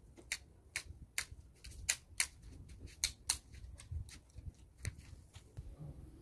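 Hand pruning shears snipping repeatedly through the stems of a low leafy hedge as it is trimmed down to an even height: a run of sharp, irregular clicks, about two a second.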